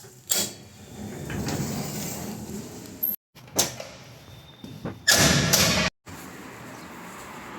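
Household handling noises in short clips: a few sudden knocks and, about five seconds in, a louder sliding scrape, like a door or cupboard being moved.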